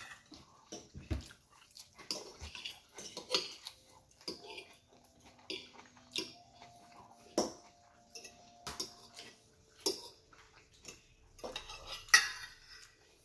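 Metal fork clinking and scraping against a ceramic plate as food is scooped up, in short irregular strokes, the loudest scrape about twelve seconds in.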